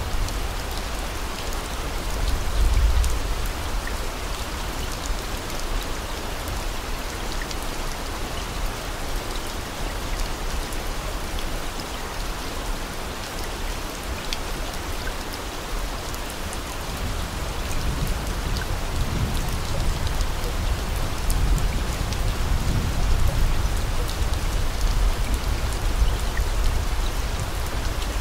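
Steady rain-like hiss with fine pattering, and slow low rumbles swelling beneath it near the start and again in the second half.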